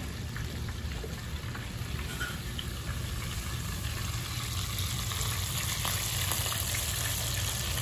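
Dredged chicken pieces frying in a pot of peanut oil, a steady sizzle, with a kitchen tap running as hands are rinsed at the sink.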